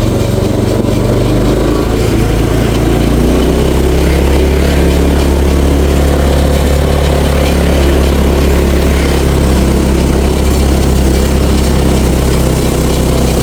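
Small engine of an old chain-drive golf cart running steadily as the cart drives under way on its new rear sprocket.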